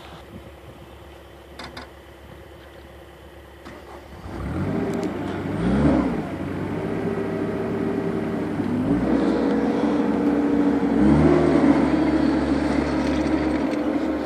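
A 2008 Caterpillar 257B track skid steer's diesel engine starting about four seconds in: it cranks, catches and revs up, then settles, and its speed steps up twice as the throttle is raised, ending at a steady higher speed.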